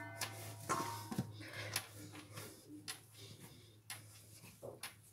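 Hands kneading and shaping a ball of dough on a wooden countertop: irregular soft knocks and pats as the dough meets the wood.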